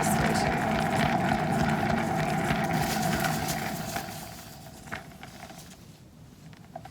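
Small electric motor of a canvas spinner running steadily, then slowing and fading out from about four seconds in as the spin winds down.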